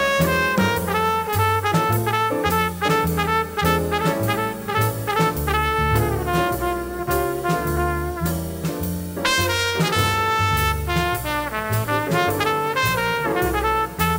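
1950s hard-bop jazz quintet recording of tenor saxophone, trumpet, piano, double bass and drums. A horn plays a melody line over a walking double bass, about two notes a second, and a steady ride cymbal.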